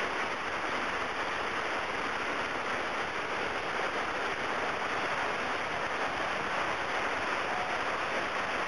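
Steady rush of flowing water in a canyon: a continuous even hiss with no separate splashes or knocks.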